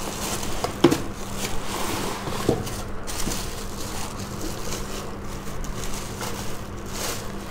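Thin plastic bag crinkling and rustling around a stainless steel casserole as it is slid out of its box and handled, with a couple of soft knocks, about a second in and again about two and a half seconds in.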